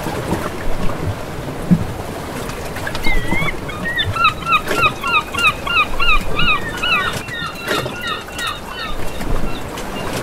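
Birds calling in a quick run of short, repeated cries, two or three a second, for several seconds from about three seconds in, over a steady rushing noise.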